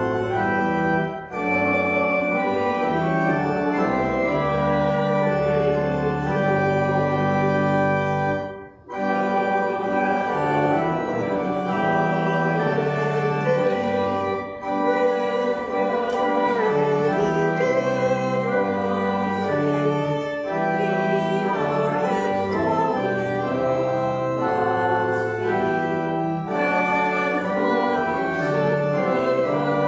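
Church organ playing a prelude of sustained, changing chords, with a brief break about nine seconds in.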